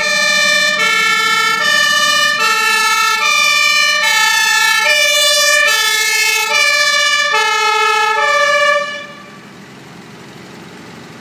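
Fire engine's two-tone compressed-air horn sounding its alternating high-low signal, switching notes about every 0.8 seconds. It cuts off about nine seconds in, leaving the fire engine's engine running.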